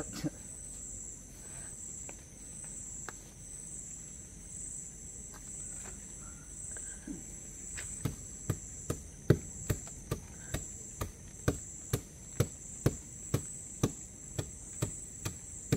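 A stone pounded against the trunk of a Saptaparni (Alstonia scholaris) tree to loosen and strip its bark: only scattered faint taps at first, then from about halfway through, steady knocks about two and a half a second. A continuous high chirring of crickets goes on throughout.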